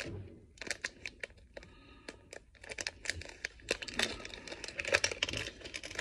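Crinkly plastic wrapper of a small surprise-toy packet being crumpled and torn open by hand: a run of sharp crackles and snaps, busiest around four to five seconds in.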